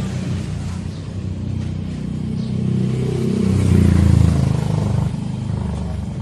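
A motor vehicle's engine running close by, growing louder about three and a half seconds in and easing off a second or so later.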